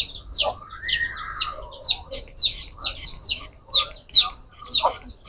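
Birds calling in the background: short sharp calls repeating about two to three times a second, with one longer call that rises and falls about a second in.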